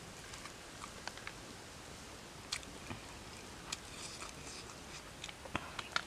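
A person chewing a mouthful of rice with the mouth open: faint wet smacks and clicks, with a cluster of sharper smacks near the end.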